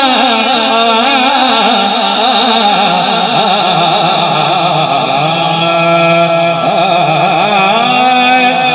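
A man singing a naat into a microphone through a PA sound system, in long wavering, melismatic phrases that settle into held notes about halfway through, with a new phrase rising near the end.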